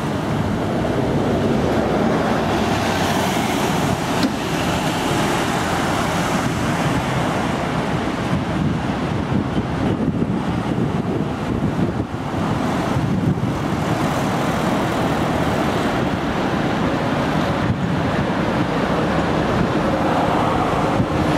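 Steady road traffic noise from cars, vans and trucks passing on a busy multi-lane road, mostly tyre and engine noise.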